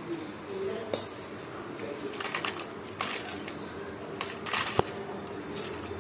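Fried, skin-on garlic cloves being tipped into a steel bowl of dried red chillies: dry papery rustling with scattered light clicks against the bowl.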